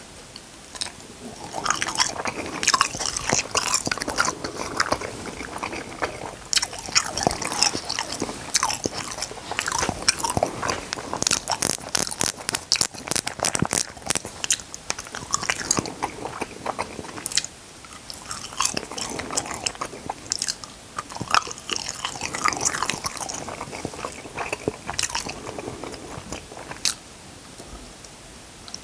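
Close-miked chewing and biting, with irregular crunching and crackling clicks of food being eaten, in bursts with short quieter pauses.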